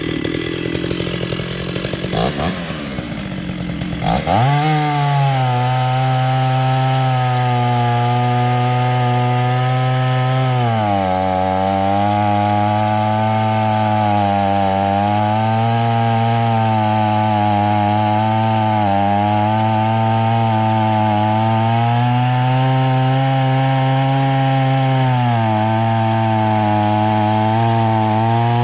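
Small two-stroke chainsaw revving up about four seconds in, then running at high revs as it cuts green hardwood. The engine note sags briefly under load twice.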